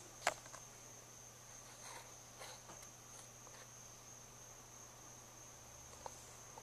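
Quiet room tone: a faint steady high-pitched whine over a low hum, with one sharp click just after the start, a few soft faint sounds around the middle and a small tick near the end.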